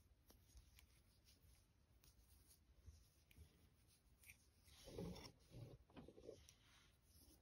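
Near silence with faint rustling and soft ticks from a crochet hook and medium-weight yarn being worked by hand. A louder patch of rustling comes about five seconds in and lasts a little over a second, as yarn is drawn out.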